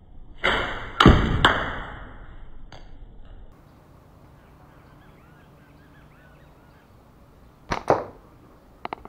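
Slingshot shots at a target: sharp strikes, one set followed by a high metallic ringing that lasts about three seconds and cuts off. A pair of sharp snaps comes near the end.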